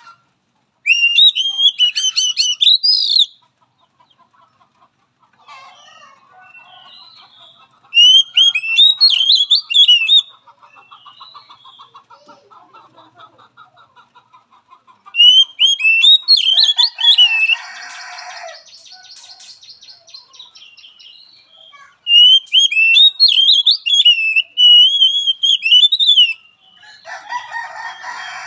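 Oriental magpie-robin (kacer) singing in four loud bursts of rapid, varied whistled phrases, with quieter buzzy, rattling calls and two harsh scratchy notes in between.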